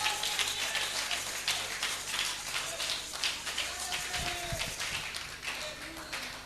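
Scattered light clapping, many sharp irregular claps, with a couple of faint voices briefly around four seconds in.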